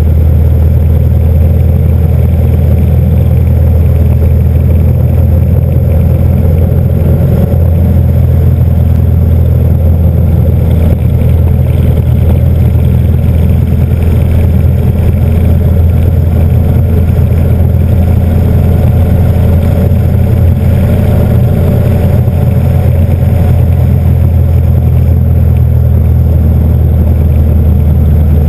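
Motorcycle cruising at a steady speed, heard from a camera mounted on the bike: a loud, steady low engine drone with wind rushing past.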